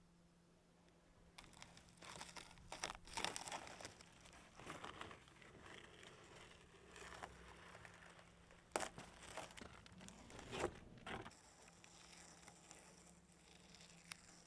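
Faint crinkling and rustling handling noises in a string of short, irregular bursts, with a couple of sharper snaps past the middle, over a faint steady low hum.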